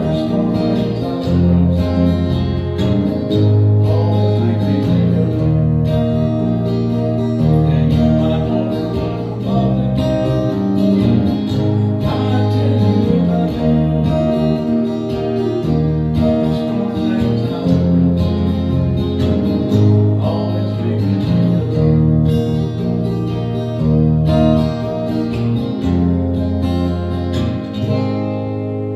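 Small band playing a country song live: strummed acoustic guitar over a steady low bass line, with a second guitar.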